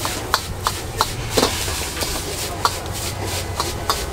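Metal ladle clinking and scraping against a wok as noodles are stir-fried: about ten sharp, irregular clinks over a steady low rumble.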